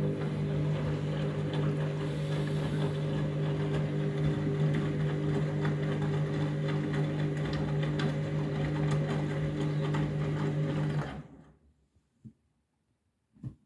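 Washing machine drain pump running with a steady hum, emptying the drum before the final spin, then cutting off sharply about 11 seconds in.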